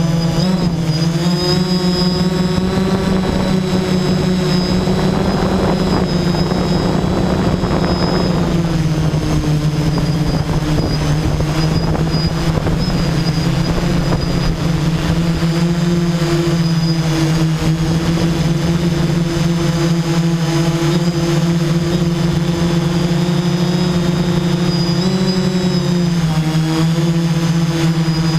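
Electric motors and propellers of a multirotor camera drone running steadily, heard through the drone's own onboard camera. The drone is held mostly in a hover, and the pitch shifts a few times as the motor speed changes: about a second in, around eight to nine seconds, and near the end.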